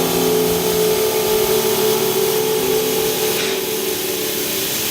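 High-speed rotary tool running with a steady whine and a grinding hiss as it sands down a turn-signal bulb socket to fit an LED bulb.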